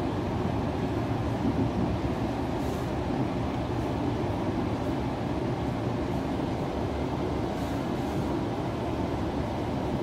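Sydney Trains Tangara electric train running at speed, heard from inside the passenger carriage: a steady rumble of wheels on track with the train's running noise.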